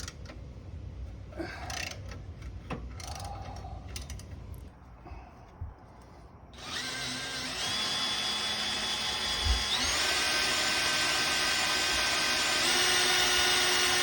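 Light clicks and knocks of hand work, then about six and a half seconds in an electric drill starts and runs steadily, its pitch stepping up twice as it speeds up. The drill is boring out a seized brake caliper bolt.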